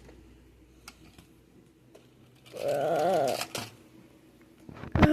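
A short, loud voice-like call lasting about a second, its pitch wavering quickly up and down, about two and a half seconds in, after a few faint clicks.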